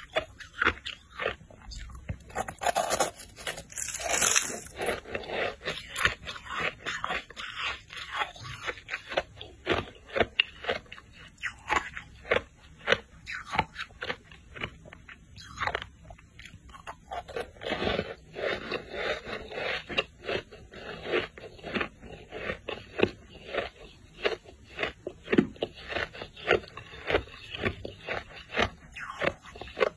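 Ice being bitten and chewed close up: a steady run of sharp, crisp crunches, several a second.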